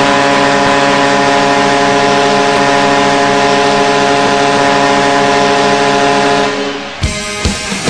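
Vancouver Canucks arena goal horn sounding for a goal: one long, steady, loud blast that fades and cuts off about seven seconds in. A rock goal song with drums starts right after it.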